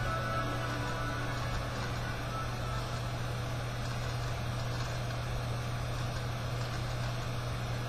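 Steady low hum under a noisy, machine-like rumble from a television soundtrack, picked up by a webcam microphone pointed at the set.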